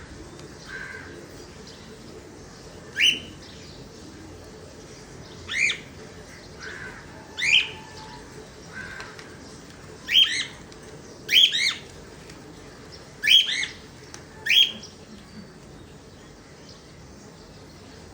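Cockatiels calling: short, sharp rising squawks every second or two, about ten in all, some in quick pairs around the middle, with quieter chirps in between.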